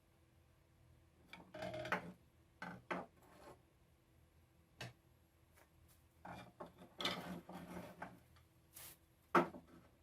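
Wooden rocking chair parts being handled and worked: irregular scraping and rubbing of wood, with a sharp knock near the end.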